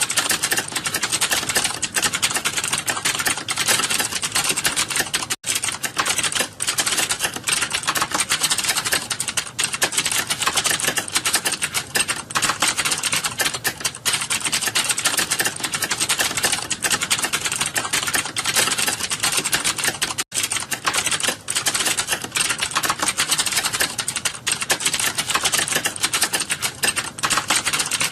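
Fast, continuous typing on a computer keyboard: a dense, unbroken stream of key clicks, with two very short breaks about 5 seconds and 20 seconds in.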